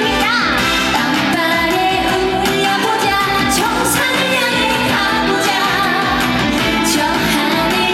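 A woman singing a trot song live over a loud band backing track.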